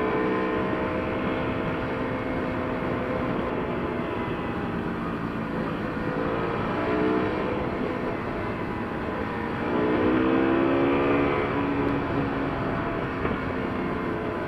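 Motorcycle engine running on the road, its pitch rising and falling with the throttle, over a steady rush of wind noise. The engine is louder and higher about two-thirds of the way through.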